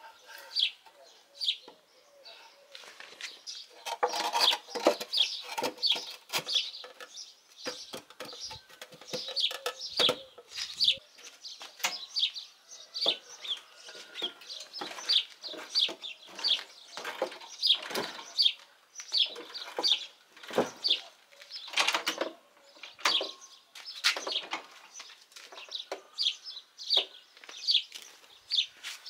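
Birds chirping over and over in short, high, falling chirps, several a second, with scattered knocks and clatters of the wooden jack being handled.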